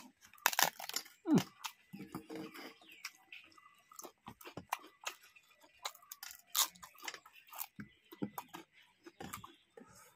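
Close-up chewing and crunching of a crisp papad and rice eaten by hand, with irregular sharp crackles as the wafer is broken and bitten, loudest about a second in and again past the middle.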